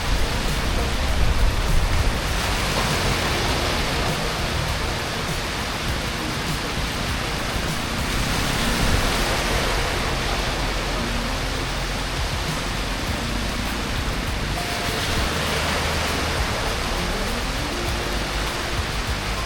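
Steady rushing noise with a low rumble underneath, holding level throughout.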